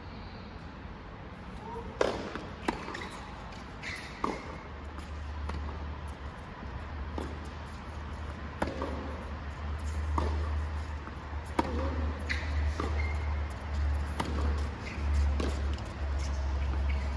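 Tennis ball being struck and bouncing on the court: a series of sharp knocks, one every second or two, over a low steady rumble that sets in about four seconds in.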